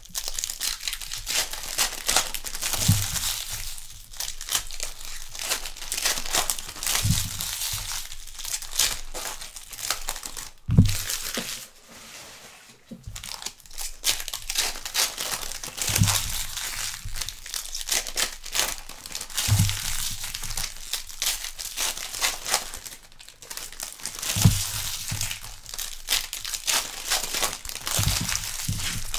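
2021 Donruss Baseball hobby packs being torn open one after another, their wrappers crinkling and tearing, with a dull thump every few seconds.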